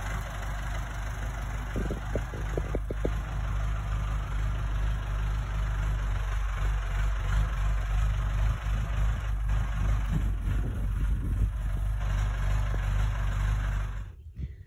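Farm tractor engine running steadily while carrying a shed on its front-loader forks, with a few short clicks about two to three seconds in.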